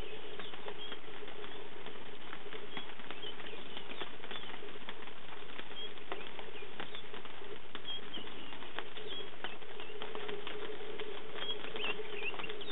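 Light rain pattering, with many small drops ticking, over a steady low hum; brief high bird chirps come and go.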